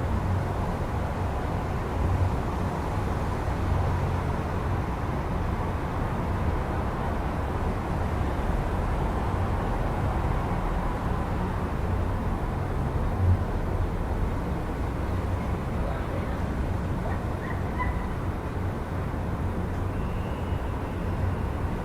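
Steady low rumble of city traffic heard through an open window, with a single brief knock a little past halfway and a few faint short high tones in the later part.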